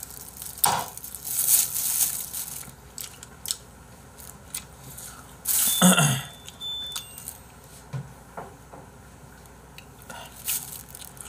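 Crinkling and rustling of thin disposable plastic gloves and a paper tissue being handled after eating, with scattered light clicks. There is a denser stretch of rustling in the first couple of seconds and a louder short burst about halfway through.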